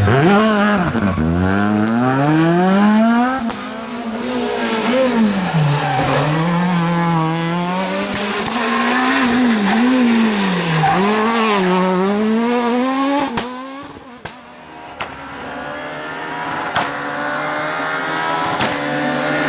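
Renault Clio S1600 rally car engine, a 1.6-litre naturally aspirated four-cylinder, revving hard and lifting off over and over as the car accelerates, shifts and brakes through a special stage. The engine pitch climbs and falls many times, with a quieter stretch about two-thirds of the way through before it revs up again.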